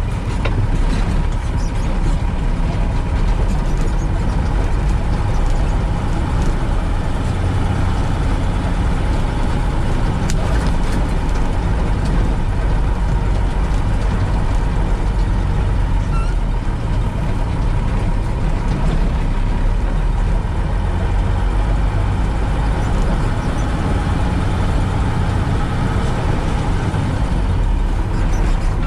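Mercedes-Benz Unimog U 406's diesel engine running steadily under way, a deep, even rumble with no change in pace, picked up by a camera mounted on the truck.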